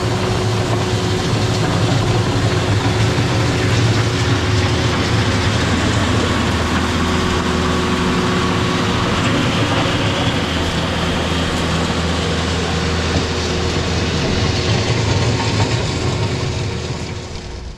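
Kubota LX4020 compact tractor's diesel engine running steadily, easing off near the end.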